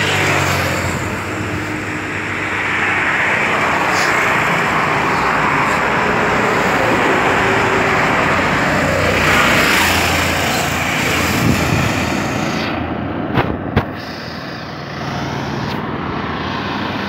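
Highway traffic: trucks and cars going by, a steady roar that swells twice as vehicles pass. Two sharp knocks come close together near the end.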